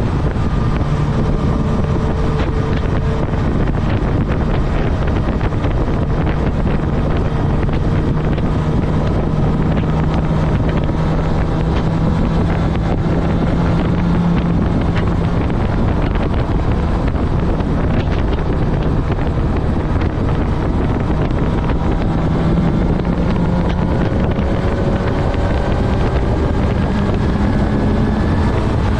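Honda CB1000R's inline-four engine running on the move at a fairly steady speed, its pitch creeping up a little around the middle and again near the end. Heavy wind noise rushes over the microphone throughout.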